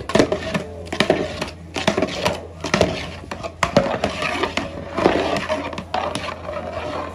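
Long metal ladle stirring thick cooked rice in a large metal pot, with repeated scrapes and knocks of the ladle against the pot, roughly one every half-second to second.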